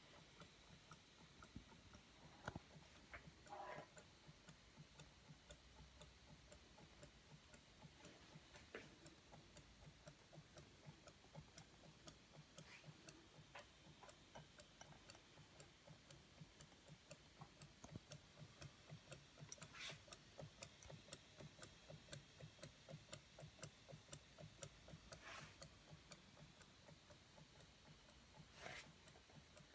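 Haynes model Stirling hot-air engine running on a spirit burner, its mechanism giving a faint, even ticking at about two to three ticks a second, with a few louder clicks.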